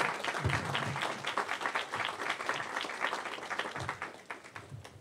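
Audience applauding after a speech, the clapping dying away over about four seconds.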